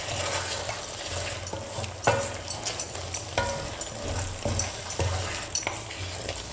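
A spoon stirring thick chicken curry in a pan on the stove, with irregular scrapes and clinks against the pan and a light sizzle, over a steady low hum.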